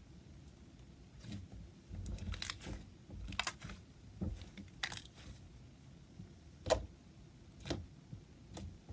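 Jelly slime being pressed and kneaded by hand, giving scattered sticky pops and squelches, a few a second at times, the loudest about two-thirds of the way through.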